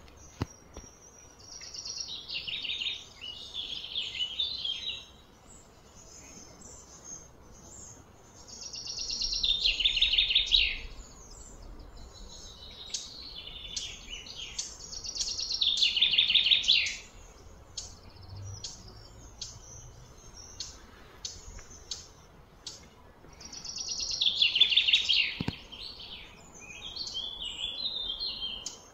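Birds chirping in a series of rapid, high-pitched phrases, each lasting two to three seconds and coming about every four to eight seconds, with short single chirps in between.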